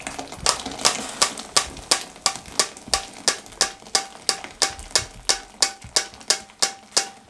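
Rhythmic metallic tapping, about three taps a second, each with a short ring: a steel mesh strainer knocking against the rim of the steel pot as the mango mixture is strained through it.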